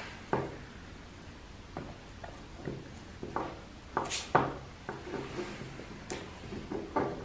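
Hands handling and bundling a car remote-start wiring harness with a roll of cloth harness tape: scattered light clicks and rustles of wires and connectors, with one brief, sharper scratch about four seconds in.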